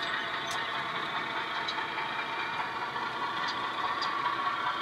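HO-scale model freight train running along the layout: a steady mechanical rumble with a few faint clicks.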